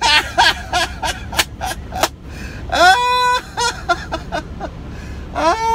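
A man laughing hard: a quick run of short breathy bursts, then two high-pitched squeals of laughter that rise and are held for about half a second each.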